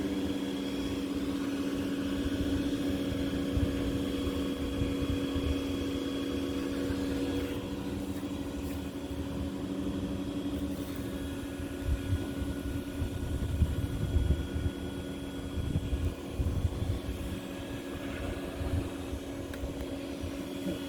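A steady mechanical hum with a few fixed tones, like a running machine or fan. Irregular low knocks and rumbles come and go through the middle.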